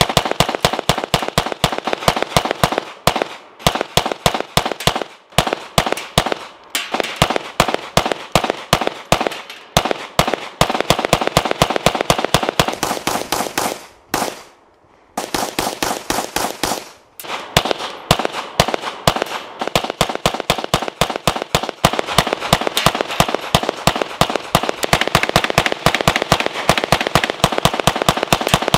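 9mm Glock pistol fired rapidly in long strings of several shots a second, with short breaks between strings and one pause of about a second about halfway through.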